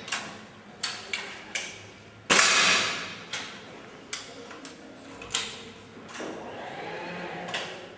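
Break-barrel air rifle fired once about two seconds in: a sharp crack with a ringing tail of nearly a second. Several lighter clicks and knocks come before and after it.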